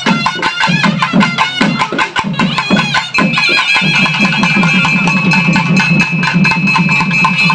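Naiyandi melam band playing: fast, dense drumming under a shrill reed-pipe melody, the pipe settling onto one long held high note about three seconds in.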